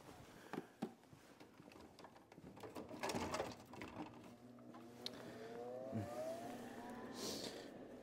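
A motor hums steadily, then rises in pitch over about three seconds as it spins up, with a few knocks and rustles from handling tools and a work light.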